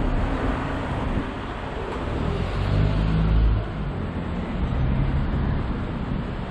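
Street traffic noise, with a motor vehicle passing close by; its low engine hum grows and is loudest a little past halfway, then drops away.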